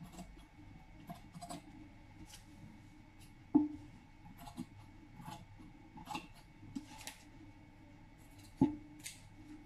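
Scissors snipping through white fabric, short cuts at about one a second, with two sharper, louder clacks of the blades, one about a third of the way in and one near the end.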